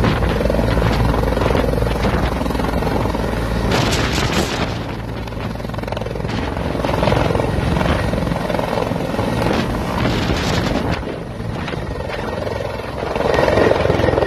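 Helicopter's turbine engine and rotor running as it lifts off and climbs away, loudest near the end as it passes close by.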